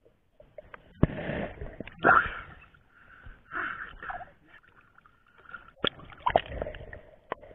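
Water splashing and sloshing in irregular surges, with a few sharp knocks, as a handheld camera is moved through shallow water and reeds.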